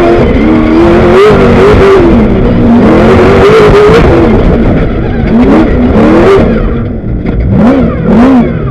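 Class 1 off-road race buggy engine, loud and revving hard, its pitch rising and falling again and again as the throttle opens and closes.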